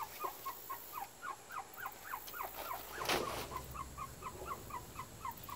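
A bird calling over and over in short rising chirps, about four a second. A little past halfway comes a brief rustling burst with a low rumble.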